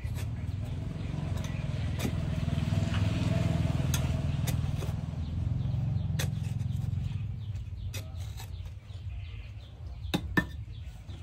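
A low motor rumble that builds over the first few seconds and fades away after about seven seconds, with a few sharp clicks.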